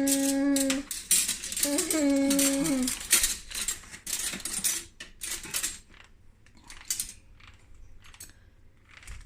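Metal cutlery clinking and clattering as spoons and forks are handled and dropped into a drawer, busiest about three to five seconds in, then a few scattered clinks. Before that, a person's voice holds a steady hummed tone, then a wavering one.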